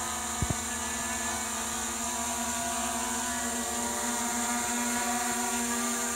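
Quadcopter's electric motors and propellers humming steadily as it hovers overhead, with two sharp clicks close together about half a second in.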